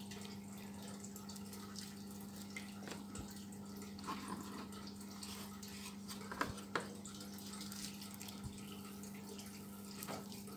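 A faint steady hum with a few soft clicks and light handling knocks scattered through it.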